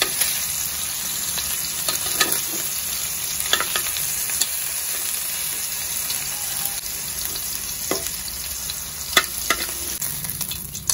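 Pork cubes sizzling in their own rendered fat in a wok after browning to golden brown, a steady frying hiss. Metal tongs clink sharply against the wok several times as pieces are lifted out.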